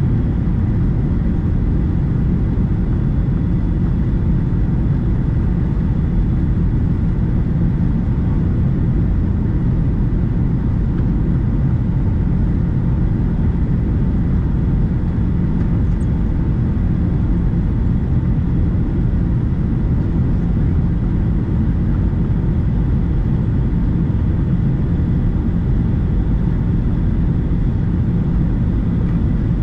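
Steady cabin noise of a Boeing 757-300 airliner on low final approach, heard from a window seat: a constant low rumble of engines and airflow with a faint steady tone above it.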